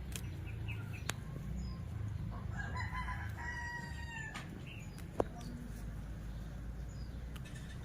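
A bird's call: one long call of about two seconds with several stacked pitches, near the middle, over a steady low rumble. There is a sharp click about five seconds in.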